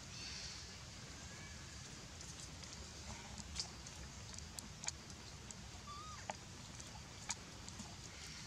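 Faint outdoor background with a few sharp single clicks in the middle and one brief high chirp about six seconds in.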